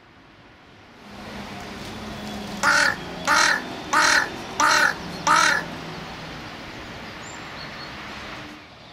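A crow cawing five times in a quick, even series, about three caws every two seconds, over a steady low background hum.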